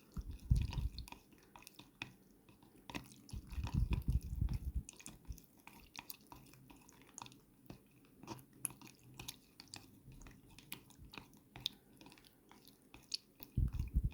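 A stick stirring thick clear sealant thinned with isopropyl alcohol in a cup, with sticky scraping and many small clicks. Several dull low bumps come from the cup being handled: about half a second in, for a stretch around the middle of the first third, and near the end.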